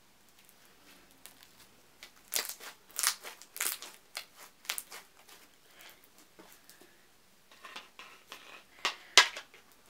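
Pink clear slime being squished and worked by hand, giving sharp crackling clicks and pops in two clusters, about two seconds in and again near the end, the loudest just before the end.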